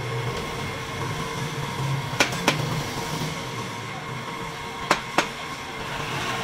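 Wood lathe running with a steady motor hum while it spins a square wooden blank. Two pairs of sharp knocks, each pair about a third of a second apart, come about two seconds in and again near five seconds.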